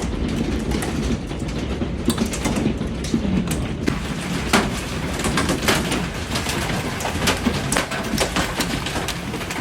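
Large hailstones pelting a house: a dense, irregular clatter of hard hits over a steady rushing roar of the storm.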